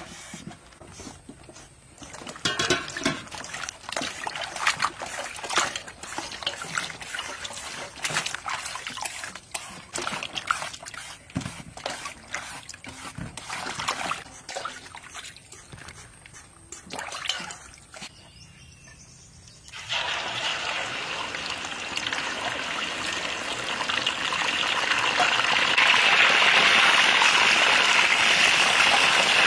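Brief scraping of a peeler shredding green papaya, then hands splashing vegetables about in a basin of water. About twenty seconds in, this gives way to the steady sizzling of whole chickens deep-frying in hot oil in a large pan, growing louder near the end.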